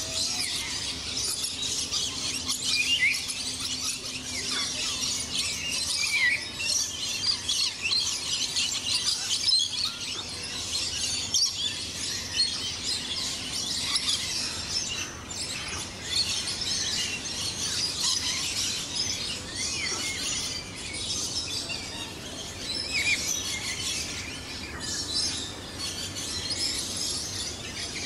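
A dense chorus of many birds chirping and twittering, high-pitched and continuous, with a few short downward-sliding calls.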